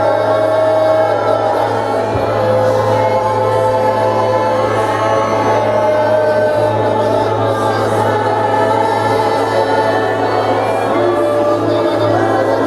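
Worship music: many voices singing long held notes together, choir-like, over a steady low sustained note.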